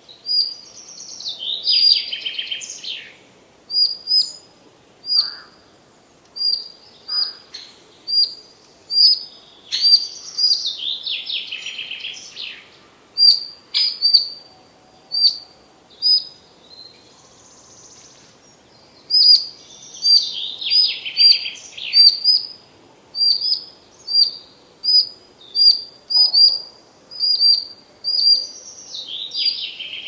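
Songbirds in a forest: one bird repeats a short high chirp about once or twice a second, while another sings a trilled phrase of about two seconds that falls in pitch, four times over.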